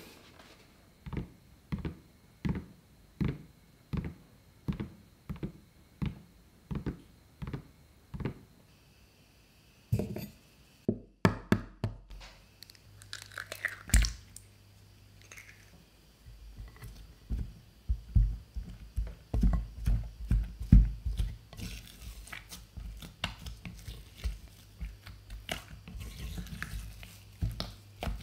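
A steady run of soft thumps, about one every 0.7 seconds, for the first eight seconds. After a short pause come a few sharp cracks and a thud as an egg goes into choux pastry dough in a glass bowl. From about halfway on, a silicone spatula mixes it in, squishing and pressing the thick, sticky dough against the glass with many soft irregular thuds.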